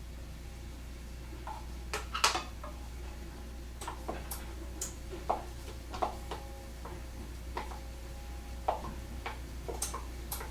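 Irregular light taps and clinks of a kitchen utensil against a dish and pot as kale salad is spooned into the lentils, about a dozen knocks with the loudest about two seconds in, over a low steady hum.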